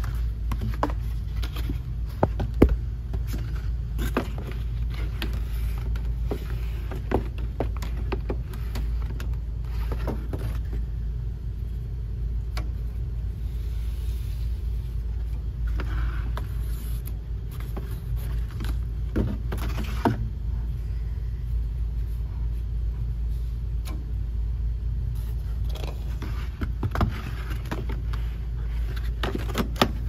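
Scattered clicks, knocks and scrapes of air filters and sheet-metal panels being handled in an air handler's filter rack, the sharpest knock about three seconds in, over a steady low mechanical hum.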